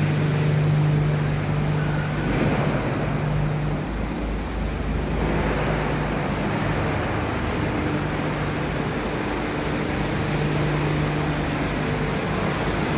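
Wood pellet production line machinery running, a steady low hum with a rushing noise over it. The hum drops back a few seconds in and returns a couple of seconds later.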